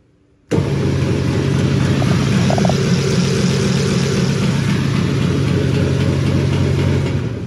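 Biro AFMG-24 mixer-grinder switched on: its electric drive starts abruptly about half a second in and runs with a loud, steady hum and hiss, then dies away near the end.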